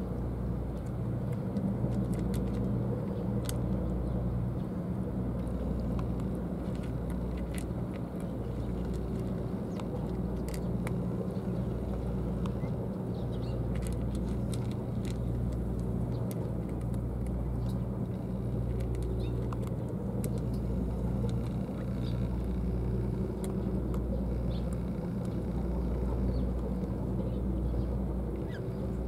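A steady low mechanical hum, with faint scattered clicks of cats crunching dry kibble.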